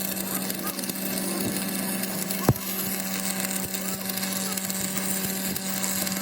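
Steady machine hum over workshop noise, with one sharp knock about two and a half seconds in and faint voices.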